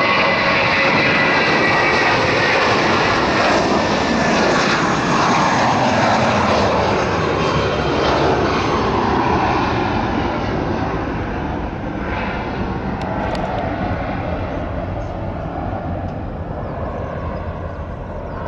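Airbus A320-232's two IAE V2500 turbofans at takeoff thrust as the jet lifts off and climbs away: loud, dense jet noise with a whine that slides down in pitch as it passes, fading gradually over the second half.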